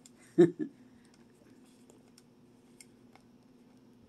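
Light plastic clicks and taps as gold plastic toy pieces are handled and pressed onto a plastic dinosaur toy, with a louder double knock about half a second in. A faint steady hum runs underneath.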